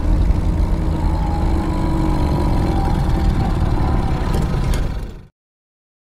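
Monster-film sound effect: a steady deep rumble with a faint hum above it, fading out about five seconds in to dead silence.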